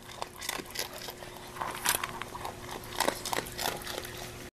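Dog chewing food close to the microphone: irregular soft crunches and clicks.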